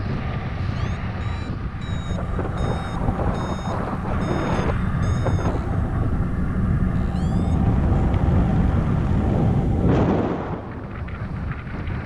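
Paragliding variometer beeping in short high tones about twice a second for several seconds, the sign of the glider climbing in lift. Under it, steady wind rush on the microphone.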